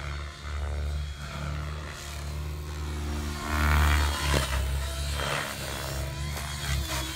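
700-size RC helicopter flying aerobatics, its main rotor and drive making a pitched whirring drone that rises and falls in pitch and loudness, loudest about halfway through as it passes close.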